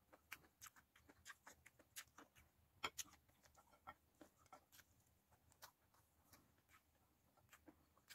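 Quiet close-up eating sounds: scattered soft clicks and smacks of chewing and of fingers picking at fried fish and rice, a little louder about three seconds in.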